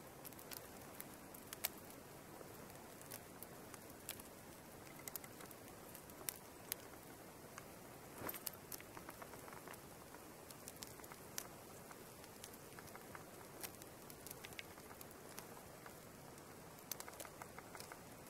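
Faint steady outdoor hiss with irregular light ticks and crackles scattered through it, a small cluster of them about eight seconds in and again near the end.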